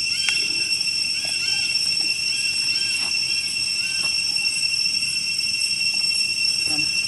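Steady high-pitched drone of insects, several held tones sounding together without a break. A string of short chirps rises and falls over it in the first few seconds.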